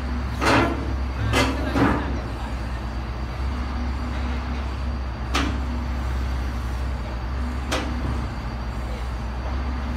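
Heavy diesel engine idling steadily with a low hum, with five sharp knocks over it: three in the first two seconds, one about five seconds in and one near eight seconds.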